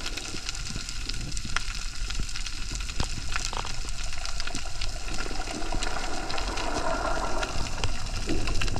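Underwater reef ambience: a constant fine crackle of many small clicks, typical of snapping shrimp, over a low rumble of water moving past the camera housing. The water noise grows a little louder toward the end.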